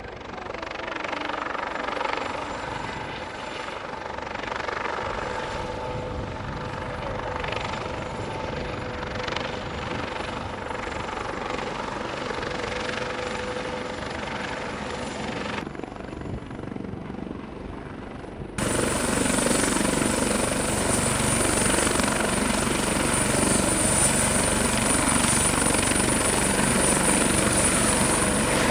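Eurocopter AS365 Dauphin helicopter hovering, its main rotor and twin turboshaft engines running steadily. About two-thirds of the way through, the sound jumps suddenly louder to a close-by, steady high turbine whine over the rotor noise, with the helicopter on the ground and its rotor still turning.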